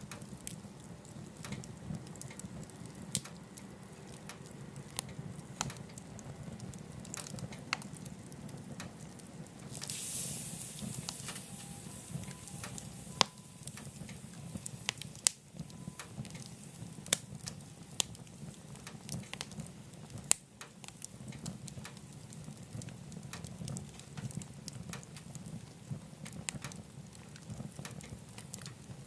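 Wood fire burning in a wood-burning stove: a steady low rumble of flame with scattered sharp crackles and pops, and a brief hiss about ten seconds in.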